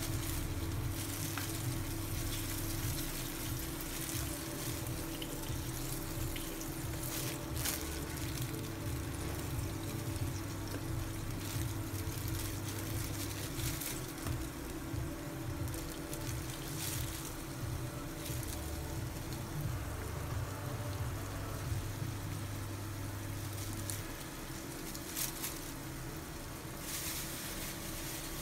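Induction cooktop switched on and running, with a steady electrical hum and fan hiss and a few faint clicks.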